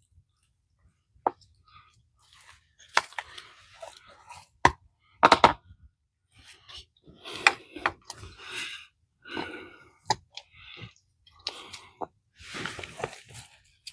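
Hand tools working at a water-line fitting: scattered sharp clicks and knocks mixed with short gritty scraping and crunching.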